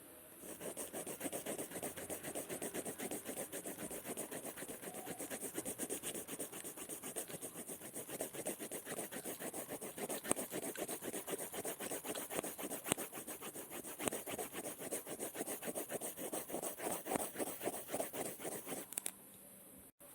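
Scribbling on paper: a dense, continuous run of short scratching strokes, many a second, that starts about half a second in and stops abruptly about a second before the end.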